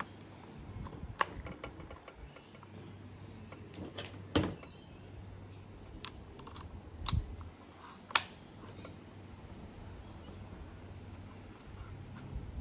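A handful of sharp clicks and knocks, four of them louder than the rest, over a faint steady low hum.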